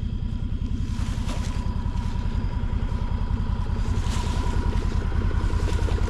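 A small vehicle engine running steadily with a low, even pulsing. A thin steady whine joins about a second in, and a couple of brief scrapes come from the hog being dragged through brush on a strap.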